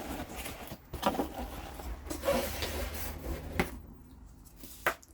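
Cardboard box and packing peanuts being handled and shifted: irregular rubbing and rustling, with a couple of light knocks near the end.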